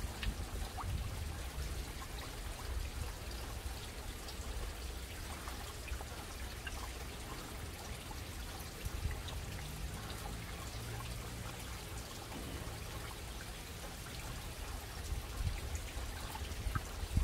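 Water trickling and lightly splashing in a backyard fish tank, with scattered small drips and splashes over a low steady rumble.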